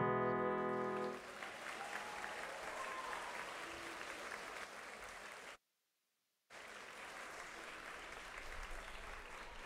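The band's final chord on electric guitar, bass and drums rings out and stops about a second in, followed by an audience applauding. The sound cuts out completely for about a second midway.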